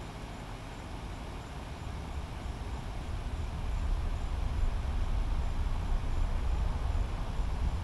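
Distant low rumble of a SpaceX Falcon 9 rocket's engines climbing after launch, swelling in loudness over the first half and then holding steady.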